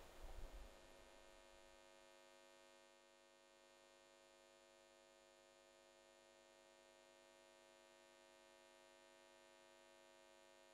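Near silence with a faint steady hum. The last of a low noise fades out within the first two seconds.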